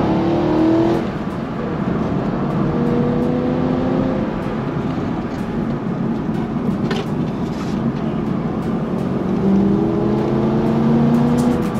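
2011 BMW M3 E92 Competition's 4.0-litre V8 pulling under acceleration, heard from inside the cabin: the engine note rises in pitch three times as the car speeds up, with steady tyre and road noise beneath.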